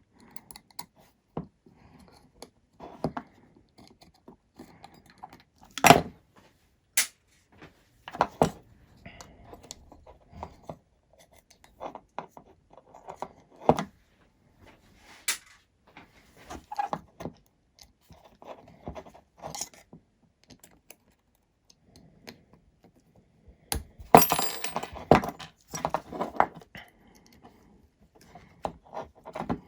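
Scattered clicks, taps and clinks of small hand tools and metal parts being handled while working at a screw stuck fast on a hexacopter frame, with a louder, busier spell of clatter near the end.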